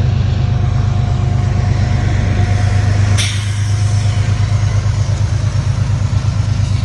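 Amtrak diesel locomotive running close by, a loud deep engine hum with a steady pulsing beat under a wash of train noise. A single sharp noise cuts in about three seconds in.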